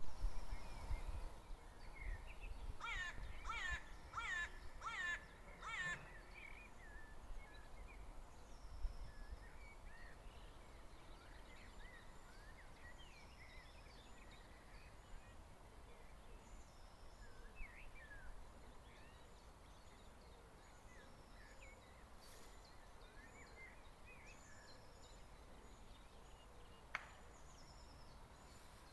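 Birds calling in open grassland. A crow-like bird gives a quick series of about six harsh caws near the start, followed by scattered small-bird chirps, over a low wind rumble.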